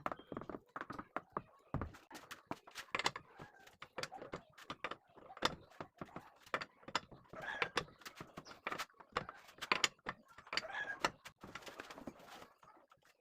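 Irregular knocks, clunks and short rattles of hard objects being handled, such as tools and parts during a car tyre change.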